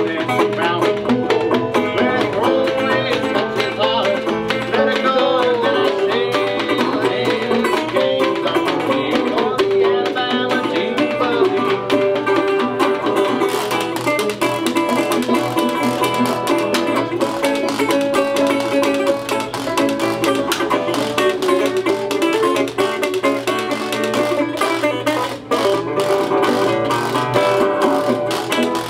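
Old-time string band music: banjo and resonator guitar picking a lively tune while a washboard fitted with metal cups is scraped and tapped, giving a rapid clicking rhythm.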